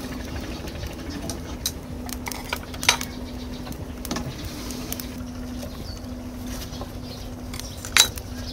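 Cooking utensils clinking and scraping against pots: a ladle in a metal stockpot of boiling pork and chopsticks in a clay pot of braising pork. The clinks come at scattered moments, with a sharp one about three seconds in and another near the end.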